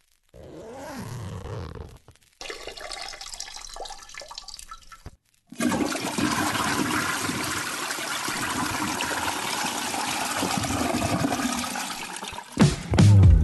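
Rushing water, a steady loud rush lasting about seven seconds, after two short, quieter snippets of sound broken by brief silences. Music comes in just at the end.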